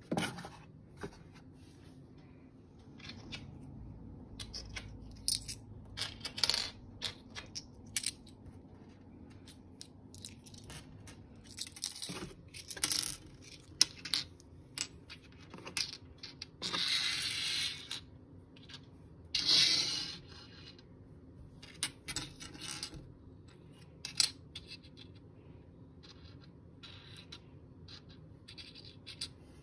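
Hands handling and setting down small decorative objects, including seashells: scattered light clicks and taps with rubbing and scraping in between. Two longer hissing rubs come one after another past the middle.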